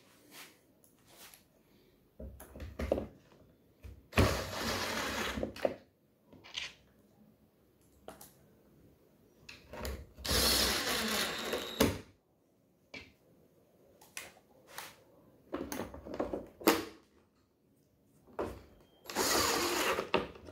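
Porter-Cable cordless drill/driver driving screws into the bottom panel of a wooden shoe-rack cabinet. It runs in three main bursts of a second and a half to two seconds each, about four, ten and nineteen seconds in. Between them come shorter, quieter runs and clicks as each screw is set.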